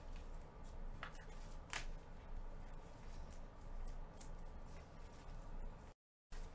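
Trading cards being handled and flipped through by hand: soft rustling with a few sharp clicks, the loudest a little under two seconds in. The sound cuts out for a moment near the end.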